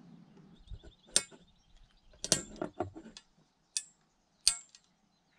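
Pipe cutter working on a metal pipe: a faint scraping as the cutter wheel turns around the pipe fades within the first half second. Then comes a run of sharp metallic clicks and knocks, loudest about a second and two seconds in, as the cutter and pipe are handled.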